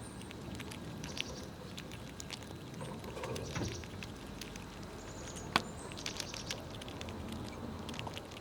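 Squirrels gnawing and cracking nuts: scattered small crunches and clicks, with one sharper crack about five and a half seconds in.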